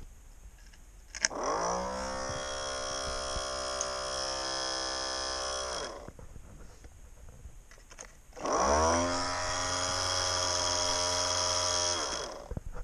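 Small electric hobby motor in the nose of a model car, run twice: each time it spins up with a rising whine over about a second, holds a steady high whine for a few seconds, then cuts off. A sharp click comes just before the first run, and the second run is at its third speed setting, about 13,500 rpm.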